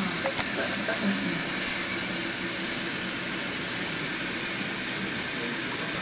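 Kitchen tap running steadily into a pot, filling it with water for boiling.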